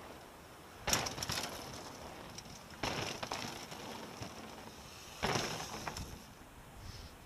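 Mountain bikes passing close by, one after another: three times a sudden burst of knobbly tyres on the dirt trail, each fading away over about a second.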